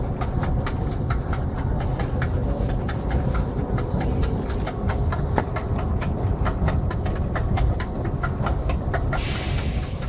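Escalator running: a steady low mechanical rumble with a regular run of clicks as the metal steps travel. A short hiss comes near the end.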